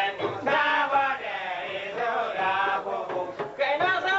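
Men singing a Hausa chant-like song, with long wavering notes held for up to a second or more.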